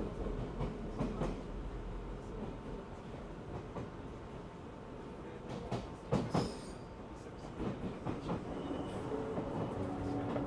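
An Odakyu 1000 series electric commuter train running, heard from inside the passenger car: a steady rumble of wheels on rail with scattered clicks over rail joints. A brief high screech comes from the wheels about six seconds in.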